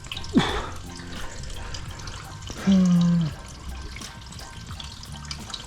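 Water trickling and dripping from leaks in the hull of an aluminium tinny filled with water for a leak test. A brief low, pitched tone about three seconds in is the loudest sound.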